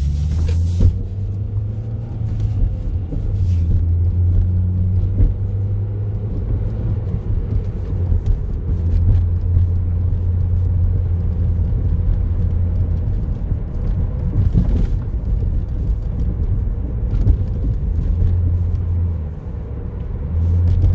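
Car engine and road noise heard from inside the cabin while driving, a low drone that swells and eases several times.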